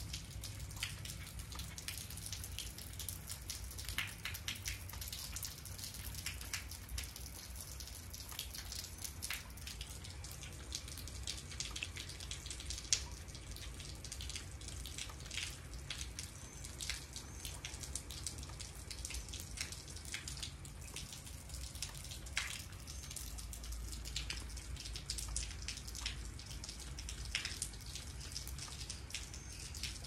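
Light rain falling: scattered drops plopping into standing puddle water and onto wet concrete, a few irregular drips a second.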